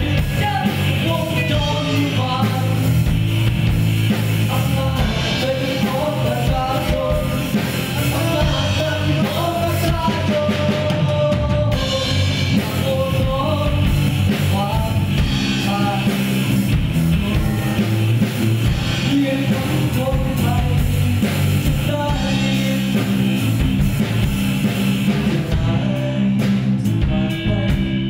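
Live rock band playing: a man sings the lead over electric guitar, bass guitar and drum kit.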